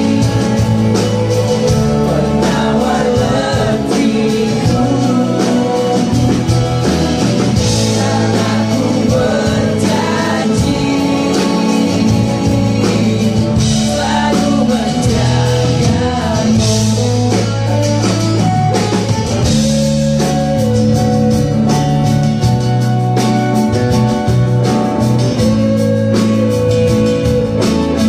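Live band playing a song: a male lead vocal over strummed acoustic guitar, bass guitar, keyboard and a drum kit keeping a steady beat.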